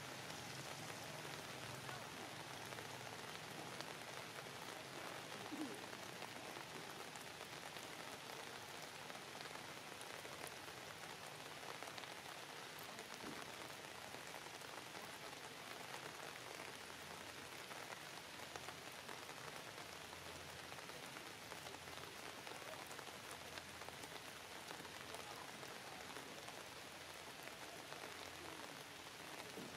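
Faint, steady, even hiss with a fine pattering texture, like light rain, with no distinct events standing out.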